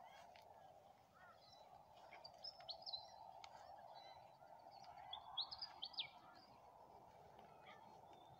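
Faint bird chirps, two short bursts of high calls about two and five seconds in, over a faint steady background hiss.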